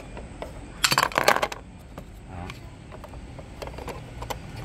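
A battery being pulled from a radio's bottom battery compartment and set down on a table: a quick cluster of clicks and clatter about a second in, then a few light taps.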